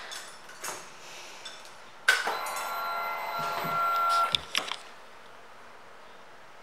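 Motorcycle ignition switched on: the electric fuel pump primes with a steady whine for about two seconds, with a few clicks just after it.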